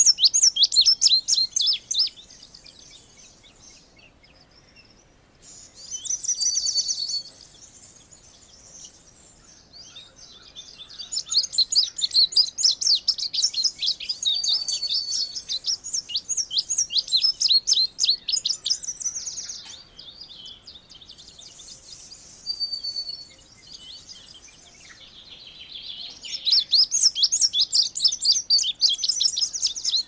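Indigo bunting singing: phrases of rapid, high chirping notes separated by short pauses, one phrase running on for about nine seconds in the middle.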